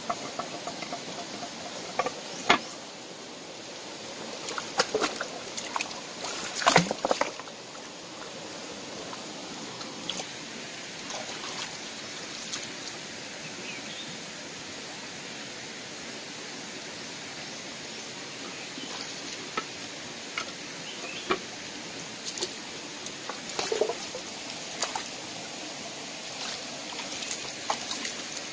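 Shallow stream running steadily, with scattered knocks, clicks and wet scrapes from hands turning over stones and debris in the wet streambed. The loudest cluster of knocks comes about seven seconds in.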